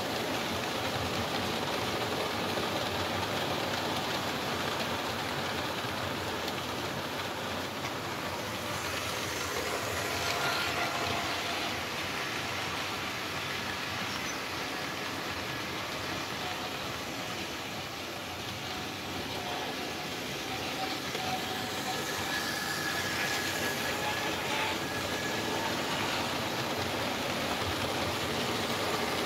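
Model trains running on a model railway layout: a steady rolling rattle of the wagons' wheels over the track, with a faint motor whine that comes and goes.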